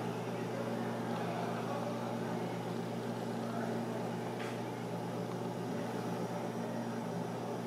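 A steady low mechanical hum, with faint voices in the background.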